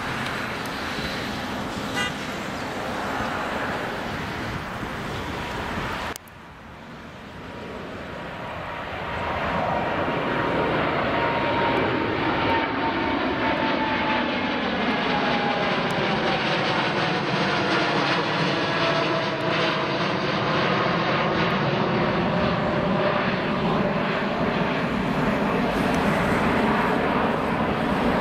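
Boeing 787-9's twin turbofan engines at takeoff thrust as the airliner lifts off and climbs out. The roar cuts off abruptly about six seconds in, then builds back to a steady roar. From then on it carries whining tones that slide down in pitch and bend back up as the jet passes and moves away.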